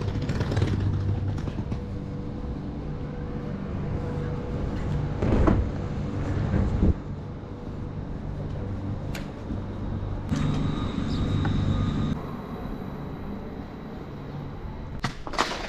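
Public-transport vehicle running with a steady low hum, with a few knocks and clunks and, about ten seconds in, a high steady tone lasting under two seconds.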